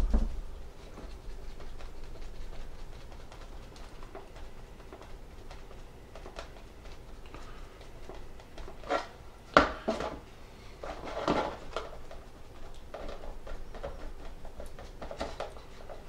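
Scattered small taps, knocks and short rubbing scrapes of hands at a hobby bench: a sponge dabbing rust texture from a jar onto a small laser-cut wooden model, and the model handled on a cutting mat. The sharpest knocks come a little past the middle.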